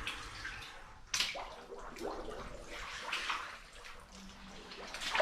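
Wading through shallow water: a few irregular splashes and sloshes about a second apart.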